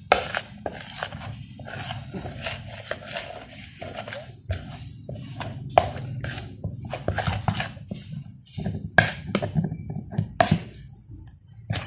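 A metal spoon scraping and knocking against a plastic mixing bowl in irregular clicks as glutinous rice flour and water are stirred together into a dough.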